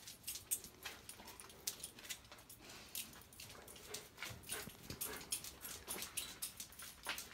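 A dog moving about on a gritty basement floor, with quiet, irregular clicks and scuffs several times a second.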